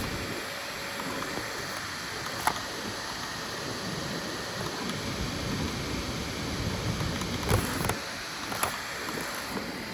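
FDM 3D printer running: a steady whir of fans and stepper motors, with a few sharp clicks from the moving print head.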